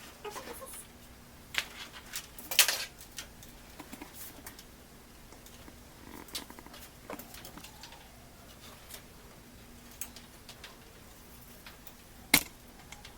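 Scattered small clicks, taps and rattles of computer parts and screws being handled during PC assembly, with one sharp knock about 12 seconds in. A faint steady hum runs underneath.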